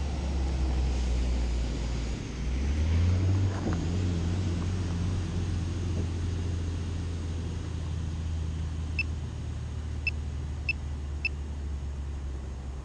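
Steady low rumble of a road vehicle, swelling briefly about two seconds in. Four short high ticks come between about nine and eleven seconds in.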